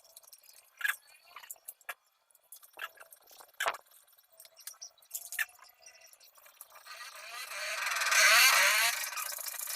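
Light clicks and knocks of metal parts of an angle grinder stand being handled during assembly, then near the end a rushing noise that swells over about two seconds and fades again.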